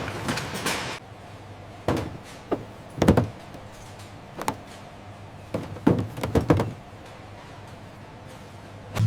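A string of irregular knocks and thuds, about eight in all, mostly between two and seven seconds in, over a faint steady low hum.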